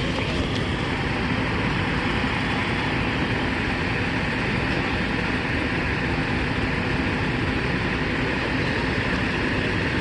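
Fire engine pump running steadily while water is pumped to the hose, a constant rumble with a hiss on top; a short click right at the start.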